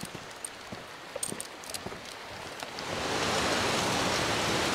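Quiet, with a few faint clicks. About three seconds in, the steady rush of a creek running over rocks comes up and holds.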